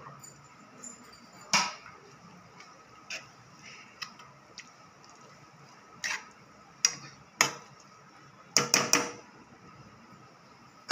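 A steel spoon clinking and scraping against a metal cooking pot while grated raw mango is stirred: scattered sharp knocks, with a quick cluster of them near the end.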